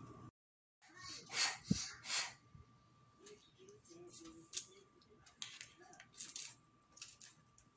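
A small child eating noodles: faint clicks and scrapes of a plastic fork on a plastic plate, short breathy slurping noises, and one sharp knock a little under two seconds in.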